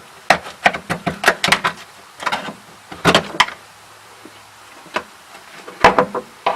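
Irregular sharp knocks and cracks of dry-ice-frozen sound-deadening mat being broken loose and coming off in chunks, in quick clusters with short pauses between.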